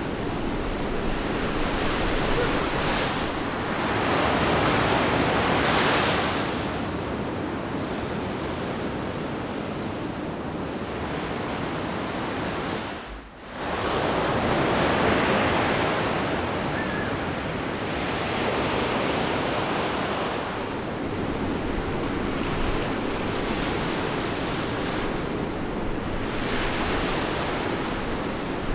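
Ocean surf breaking and rushing, a continuous roar that swells and eases, with a brief drop in level about halfway through.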